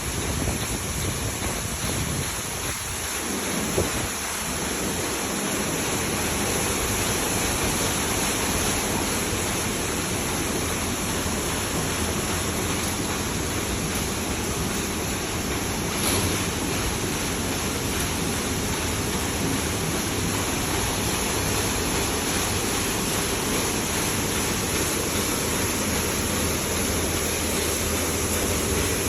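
Automatic car wash spraying water over a car: a steady rush of water.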